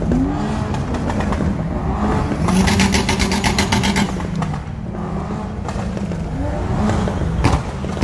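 Modified cars' engines running at idle with brief rev blips, and a burst of rapid exhaust crackle, about ten pops a second, lasting under two seconds around the middle.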